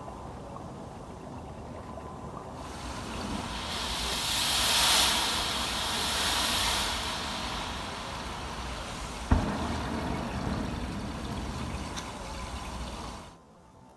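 Matches and sparklers burning in a heap with a fizzing hiss that swells a few seconds in and then eases off. A single sharp pop comes about nine seconds in, and the hiss cuts off shortly before the end.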